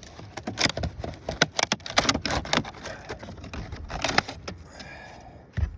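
A brittle wood shake shingle being worked loose and pulled out of a roof: a run of irregular cracks, scrapes and knocks of dry wood, with a heavier low thump near the end.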